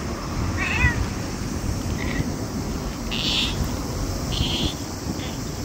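A small black cat meowing: one short call a little under a second in, followed by a few brief, fainter sounds.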